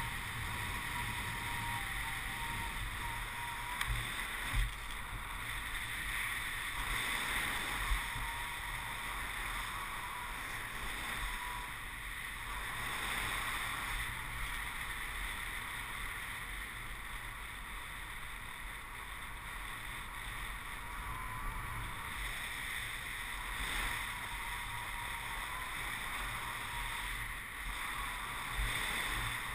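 Steady rush of flight wind over the microphone of a camera mounted on a paraglider's risers, with a couple of brief low bumps of buffeting in the first third.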